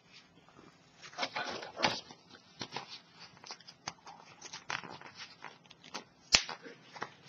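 Fabric rustling and scraping with irregular small clicks as the metal prongs of a magnetic snap are pushed through slits in bag fabric, with one sharp click a little after six seconds.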